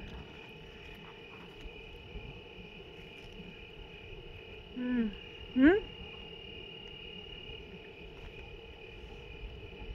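Crickets chirping steadily at night. About five seconds in, a person makes two short voiced sounds, a falling one and then a rising one, the second the louder.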